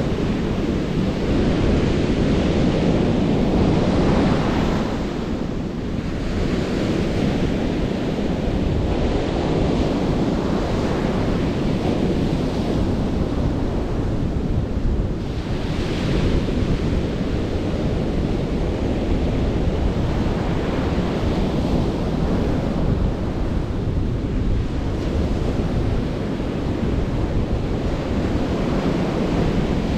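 Ocean surf breaking on a sandy beach, a steady rush with waves swelling and washing in every few seconds, with wind buffeting the microphone.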